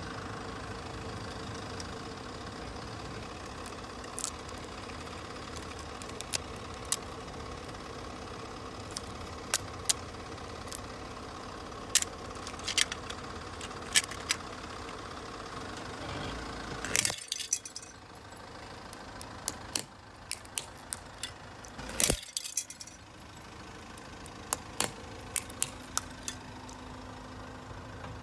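A car engine idling steadily, with scattered sharp plastic clicks as a hard plastic tape dispenser is handled and set on concrete, then a burst of cracking past the middle and one loud crack a few seconds later as it shatters under the tyre.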